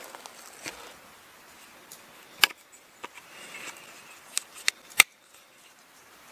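A few sharp clicks and taps of an axe and its leather sheath being handled, the sheath's brass stud fastener and the steel head knocking, with the loudest click about five seconds in.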